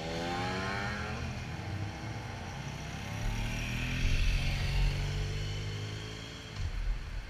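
Motorcycle engines: one bike's engine note falls away at the start, and another grows louder and passes about four seconds in, over a steady low engine hum.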